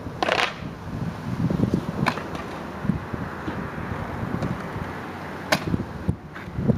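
Stunt scooter's wheels rolling over asphalt with a steady rumble, broken by sharp clacks from the scooter near the start, about two seconds in and about five and a half seconds in.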